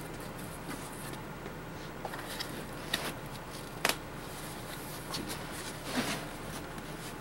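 A long cardboard shipping box being handled and shifted on a wooden countertop: light scrapes and rustles of cardboard, with a few sharp clicks and knocks about 3 and 4 seconds in and a short scrape about 6 seconds in.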